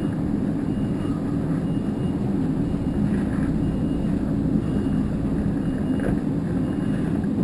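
A vehicle engine running steadily: an even low hum with no change in speed.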